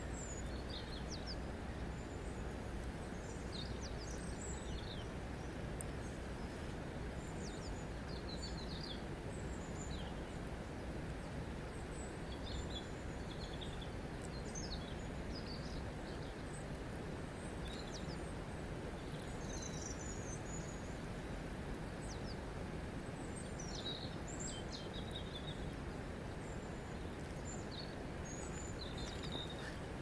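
Steady flow of a shallow river over cobbles, an even rush of water, with small birds chirping briefly and often.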